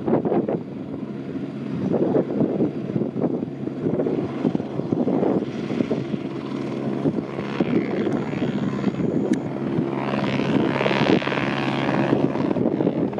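Eurocopter AS350 Squirrel helicopter flying at low level, its rotor throbbing steadily. A higher turbine whine grows in over the last few seconds as it comes closer.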